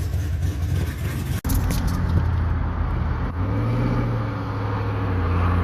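V8 engine running steadily with a low drone, cutting out for an instant about one and a half seconds in.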